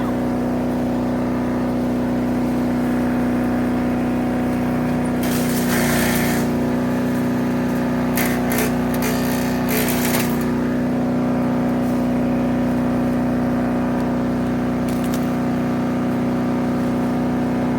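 A 3-inch wood chipper's engine running steadily at speed, with two stretches of harsher, hissing noise about five and eight seconds in, as material goes through it.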